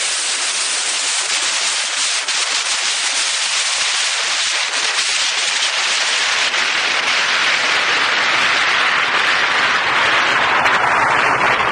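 Strong wind rushing over the Insta360 One X camera's microphone: a loud, steady hiss with light crackling that swells a little in the second half.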